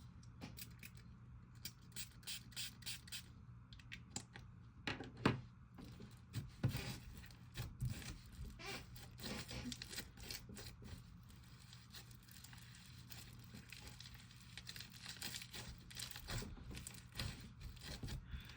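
Clay slime being squished and pulled by hand, giving a run of irregular soft crackles, clicks and tearing noises.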